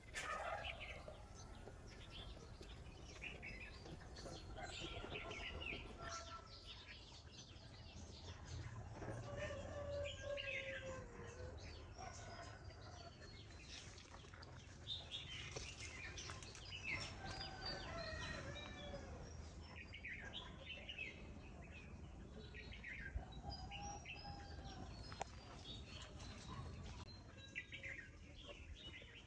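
Many birds chirping and calling in short, repeated phrases, with a few lower calls and a steady low background rumble. A short knock sounds right at the start.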